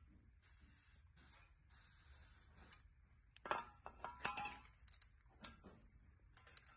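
Aerosol spray can of WD-40 hissing in three short bursts onto a bare aluminium LS engine block, then several metal clinks and knocks of the can and tools against the block, and another spray hiss near the end.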